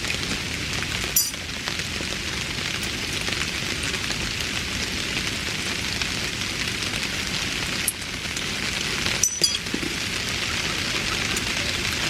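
A steady hiss like light rain, with a few sharp clicks: one about a second in, one near eight seconds, and two close together a little after nine seconds.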